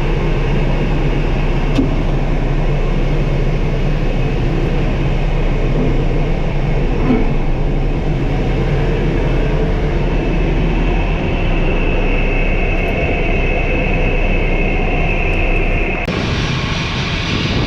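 Trepel Challenger pushback tug's engine running steadily while pushing an Airbus A319, with a high steady whine growing in from about ten seconds. The sound changes abruptly near the end.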